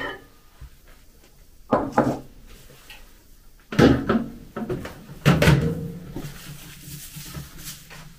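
Three dull knocks and clunks, a second or two apart, of dishes being handled and a plate set down on the kitchen table; the last one rings briefly.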